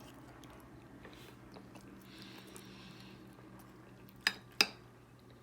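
Quiet mouth-close chewing of food, with two sharp clicks a third of a second apart about four seconds in, over a steady low hum.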